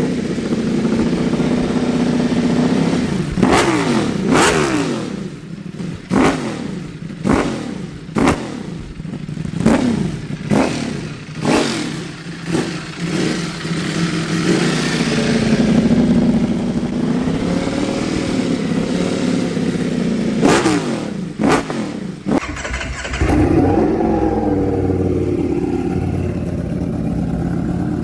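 Ducati Panigale V4 engine through an aftermarket exhaust, blipped again and again, each sharp rev falling quickly back toward idle, with a slower, longer rise and fall in the middle. About 22 seconds in, the sound switches abruptly to another recording of the same bike running.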